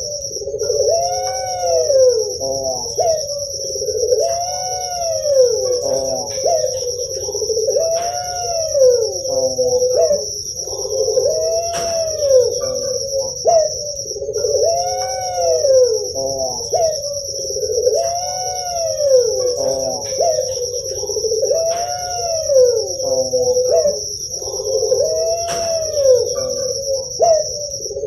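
Puter pelung dove (a ringneck dove breed) cooing over and over, each call a rising-and-falling coo about every two and a half seconds, over a steady high-pitched whine.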